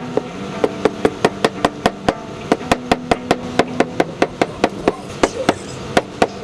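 A hammer tapping steadily and lightly, about four even strikes a second.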